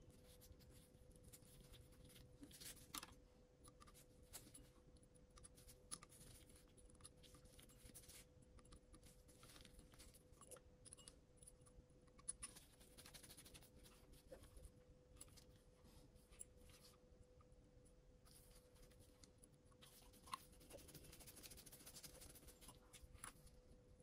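Faint scratching and light clicks of small hand tools working on a DJI Mini 3 Pro drone's gimbal, with a faint steady hum underneath.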